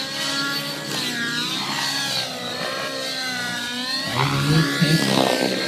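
Radio-controlled nitro helicopter with a YS 120 glow engine flying aerobatics. Its engine and rotor whine rise and fall in pitch as it manoeuvres, and the sound gets louder about four seconds in.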